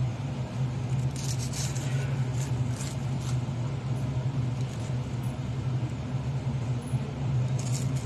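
Serrated knife sawing through a crisp grilled sandwich, giving a few faint scratchy crunches, over a steady low hum.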